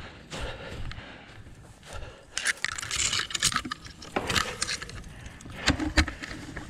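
Footsteps through dry grass and leaf litter, with rustling, scraping and a few sharp knocks.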